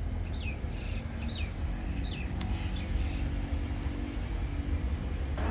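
Distant CSR Qishuyan diesel-electric locomotive running as it rolls slowly toward the camera: a steady low rumble with a faint engine hum. A bird chirps three times in the first couple of seconds.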